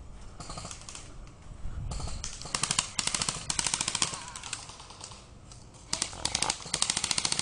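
Airsoft guns firing rapid, evenly spaced shots in two long bursts, the first about two and a half seconds in and the second starting about six seconds in.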